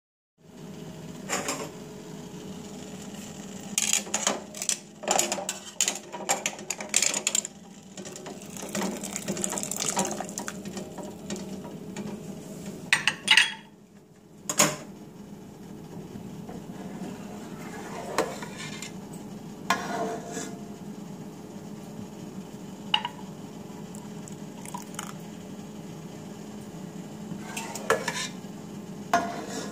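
Metal ladle and pot clinking and scraping against each other and against a glass canning jar as hot jelly is ladled into the jar, in irregular bursts of clinks with a few lone knocks later on. A steady low hum runs underneath.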